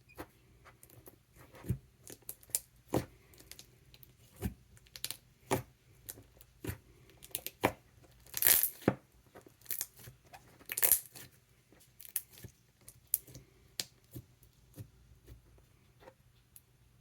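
Thick silken-tofu-texture slime being worked by hand, giving a string of irregular sharp clicks and crisp bubble pops, with two louder, longer pops near the middle.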